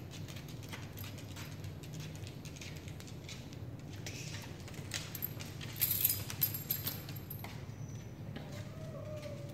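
Dogs' collar tags jingling and claws clicking on a hardwood floor as the dogs move around, with a louder burst of tag jingling about six seconds in.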